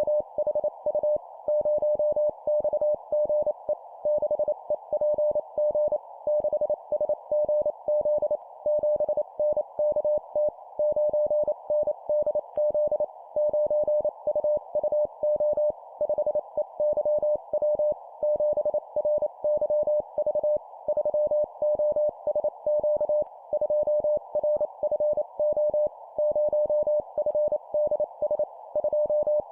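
Morse code (CW) at 25 words per minute: a single steady mid-pitched tone keyed on and off in dots and dashes, sent in four-character groups of a number followed by three letters, over a faint steady hiss.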